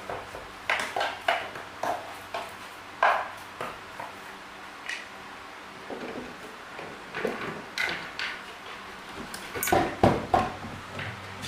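Irregular clinks and knocks of small metal parts and hand tools being handled, over a faint steady hum, with the loudest knocks clustered about ten seconds in.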